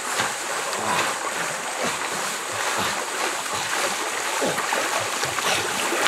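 River water splashing and sloshing in quick irregular strokes as a person in the water pushes a small floating log boat along by hand, over a steady high hiss.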